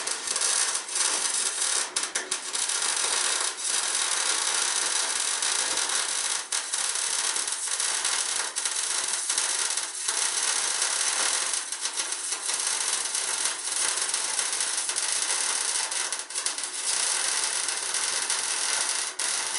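Electric arc welding on steel ship's frames: the arc gives a steady crackling hiss, with a few brief dips.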